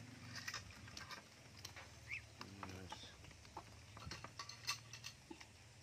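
Muscovy ducks and ducklings pecking and snapping at shrimp on the ground: faint, quick, irregular clicks of bills, over a low steady hum.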